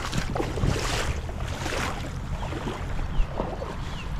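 Shallow water sloshing and splashing around the legs of a wading angler, in repeated short swishes, over a steady rumble of wind on the microphone.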